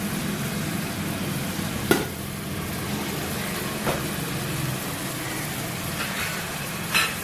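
Mutton with onions and spices sizzling as it fries in oil in a metal pot, over a steady low hum. A spoon knocks against the pot three times, about two seconds apart, as the meat is stirred.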